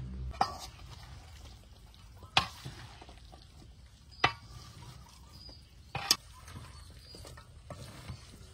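Chopped pork and onions in a creamy dressing being tossed in a large metal bowl with a wooden spatula and spoon: wet stirring, with four sharp knocks of a utensil against the bowl about two seconds apart.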